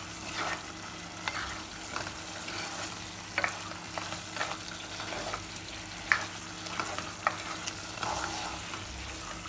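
Mutton curry sizzling in a nonstick pot over a high flame, its water almost cooked off, while a spatula stirs it, with irregular scrapes and knocks of the spatula against the pot.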